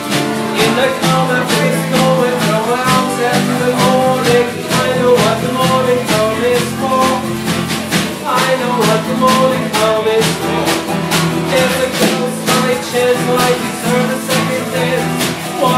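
Live acoustic band playing an instrumental passage: two acoustic guitars strummed over a snare drum struck with sticks in a steady beat.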